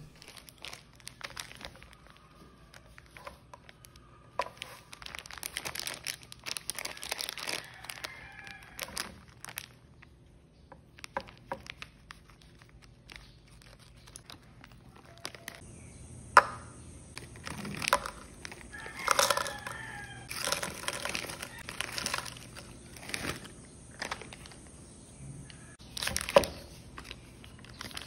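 Close-up packaging sounds: scissors snipping open a plastic bag of frozen mixed vegetables and the bag crinkling, then the paper wrapper of a block of butter rustling as it is peeled open. A string of small clicks and crackles.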